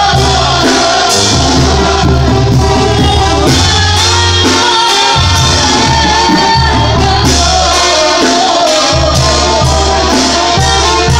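Live Mexican-style brass band playing loudly, a sousaphone holding deep bass notes under trumpets and trombones with a steady beat, while a woman sings the melody into a microphone.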